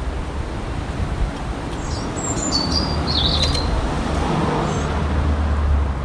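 A songbird chirping a short phrase of high, gliding notes about two seconds in, over a steady low rumble.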